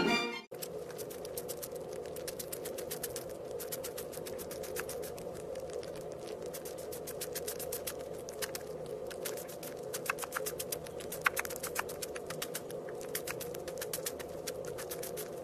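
Tabby kitten purring close against the microphone: a steady, rapid rattle over a low hum, with a few sharper clicks about ten seconds in.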